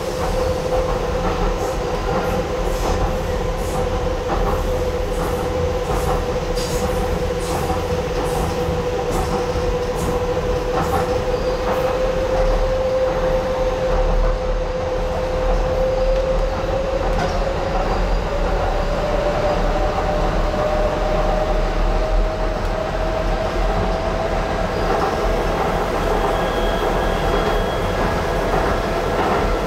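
Docklands Light Railway train running along its track, heard from inside the car: a steady low rumble with scattered clicks from the wheels on the rails, and a steady whine that slowly rises in pitch in the second half.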